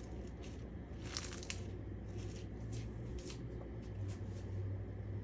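Soft rustling and crinkling as leafy salad greens (arugula and lettuce) are handled, a few brief strokes spread through, over a faint steady low hum.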